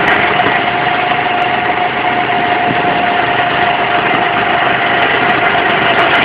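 Go-kart's small engine running at a steady speed, heard from on board the moving kart: an even, loud drone with a whine that holds one pitch.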